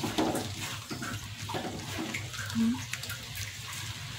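Shredded cabbage and egg sizzling in a metal wok while a spatula stirs and scrapes through it, with a steady hiss broken by short scraping strokes.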